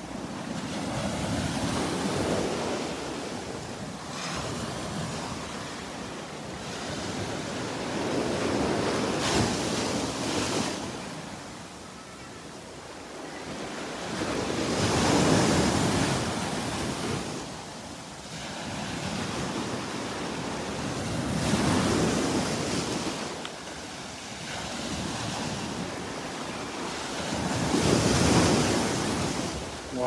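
Surf breaking on the shore and washing up the sand around a fallen dead tree, the rush of water swelling and fading about every six seconds, loudest about halfway through and near the end.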